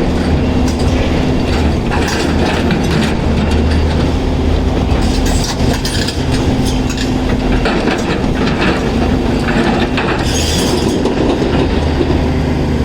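A heavy CAT 336 excavator at work: its diesel engine drones steadily under load, with repeated clattering and knocking of rock and metal throughout. There is a short hiss about ten seconds in.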